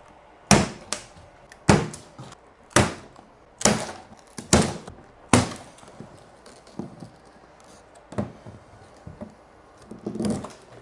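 Hard knocks on a shipping crate as it is being opened: six loud blows about a second apart, then a few lighter ones near the end.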